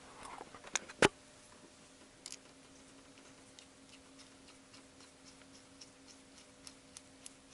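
Faint light clicks and ticks of a steel spark plug being threaded by hand into a brass spark-plug thread-repair insert, with one sharper click about a second in. A weak steady hum lies underneath.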